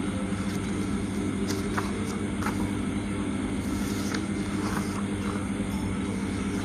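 A steady low machine drone with a few faint, scattered ticks.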